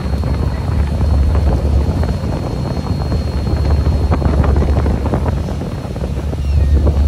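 Wind buffeting the microphone on the open deck of a fishing boat under way, over a steady low rumble from the boat. The buffeting swells and eases, with a dip a little before the end.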